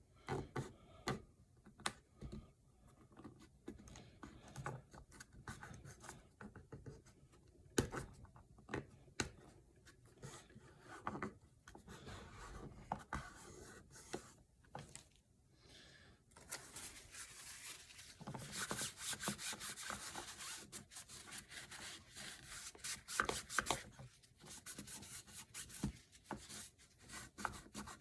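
Hands working a self-adhesive Frogzskin filter sheet against a plastic air box cover, faint: scattered clicks and rustles, then from about halfway through a denser run of rubbing as the material is pressed down tight.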